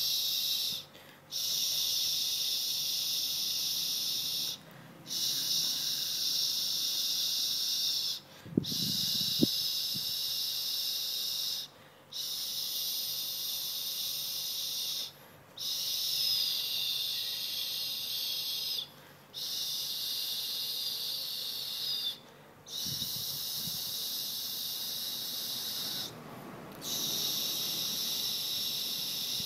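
A high hissing buzz that comes in stretches of about three seconds, each broken off by a short gap, repeating evenly. Soft low sounds come in briefly about nine seconds in and again near 23 seconds.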